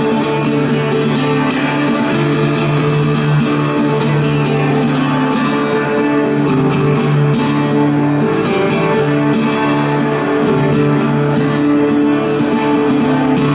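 Guitar strumming chords in an instrumental passage of a song, with no singing.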